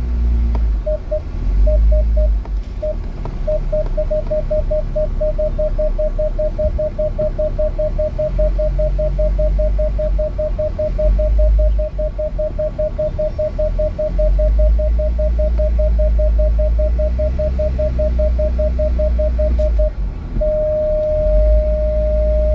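Vehicle parking-sensor warning beeping, a single mid-pitched beep repeating about five times a second after a few scattered beeps, then changing to one continuous tone about twenty seconds in, the sign of an obstacle right at the bumper. A low rumble runs underneath.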